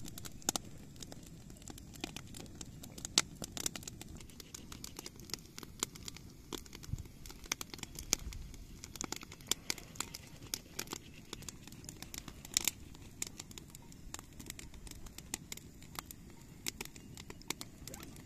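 Wood campfire crackling: irregular sharp snaps and pops, a few of them louder, over a low steady background.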